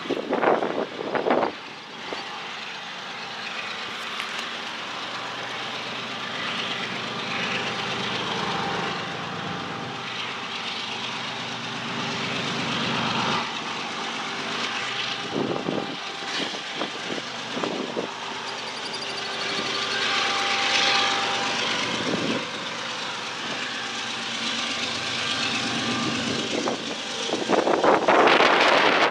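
A steady, distant engine drone with several held tones, with wind buffeting the microphone at the start and again near the end.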